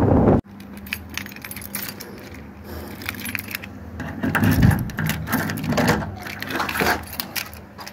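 Wind on the microphone cuts off abruptly about half a second in. Light clicking and clinking of small hard objects being handled follows, over a faint steady hum.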